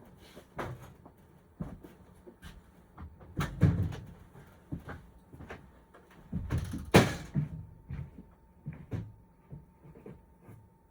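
Irregular knocks and clunks of things being handled and set down, loudest twice: about three and a half seconds in and about seven seconds in. A faint steady tone starts with the second loud clunk and continues.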